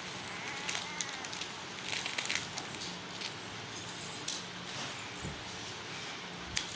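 Clear plastic packets rustling and beaded metal jewellery clinking as it is handled and set down on a table, heard as scattered light clicks over a faint steady hum.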